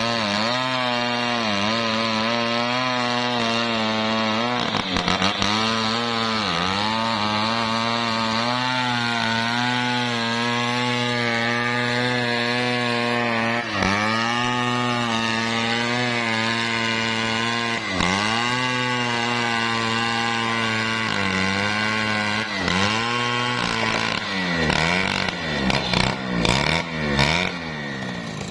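Stihl 070, a large two-stroke chainsaw, running flat out while ripping lengthwise through a teak log. The engine pitch sags briefly under load every few seconds and recovers. Over the last few seconds it drops and revs back up several times in quick succession.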